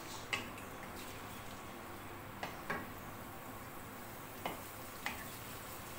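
Ginger-garlic paste sizzling in ghee in a kadhai, with a steady frying hiss. A wooden spatula stirs it, scraping and knocking the pan about five times.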